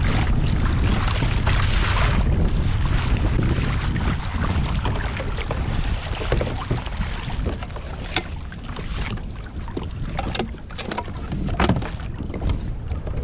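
Strong wind rumbling on the microphone over water slapping against a fishing kayak's hull, louder in the first half, with a few short sharp clicks in the second half.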